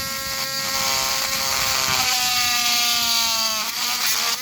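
Handheld electric rotary tool running with a high whine as its large bit enlarges a hole in cured resin. The pitch sags from about two seconds in as the bit bites under load, and picks back up near the end.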